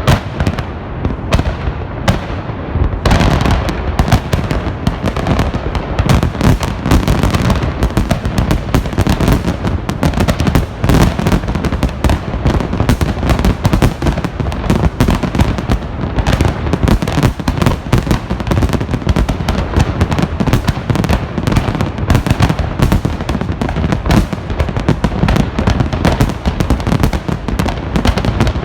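Festive fireworks salute: a dense, continuous crackling and popping of bursting shells with heavy low rumble underneath, thickening about three seconds in.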